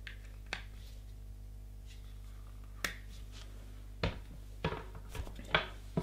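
Scattered light clicks and taps from hands handling a small plastic speaker and its charging cable, with a quicker run of knocks near the end as a cardboard box is picked up.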